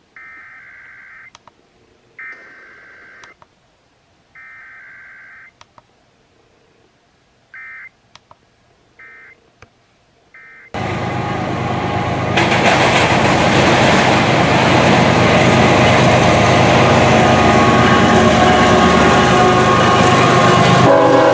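Faint EAS digital data bursts: three screeching bursts about a second long, each a second apart, then three short ones, with a few clicks between. About eleven seconds in, a much louder continuous noise with some steady tones cuts in suddenly and carries on.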